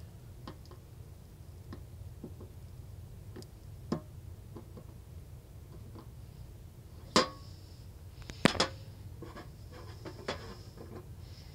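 Small clicks and taps of metal tweezers, a soldering iron and a circuit board as a capacitor is worked out of its solder pads. A few sharper clicks stand out about seven seconds in, with a close pair about a second later, over a low steady hum.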